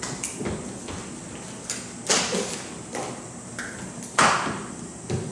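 Scattered sharp taps and scratching from writing on a board, with a loud knock about two seconds in and another about four seconds in.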